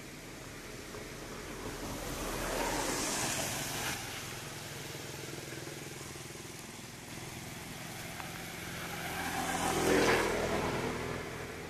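Two road vehicles passing by. Each one swells and fades away: the first about three seconds in, the second, louder, about ten seconds in.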